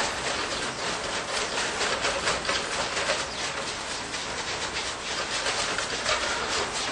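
Continuous rattling and clattering of wire-mesh cages as the farmed fur animals inside move about, a dense run of small clicks over a hissing background.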